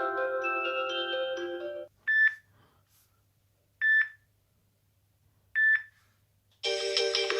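Android phone ringtones played back to back. A marimba-like melodic ringtone cuts off about two seconds in, followed by three short identical beeps about 1.7 seconds apart, and a new, denser melodic ringtone starts near the end.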